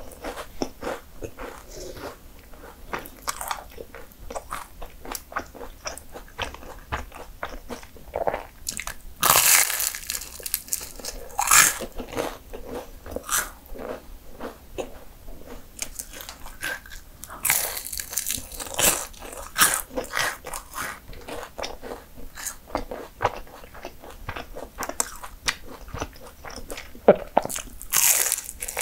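Biting and chewing flaky puff pastry: a steady run of crisp, crackly crunching, with several loud bites standing out, the loudest about a third of the way in and near the end.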